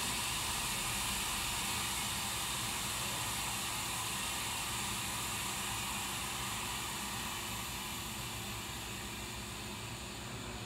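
Hydraulic lift of a large industrial paint mixer running as its crossbeam lowers on two hydraulic cylinders: a steady hiss over a low hum, easing off slightly toward the end.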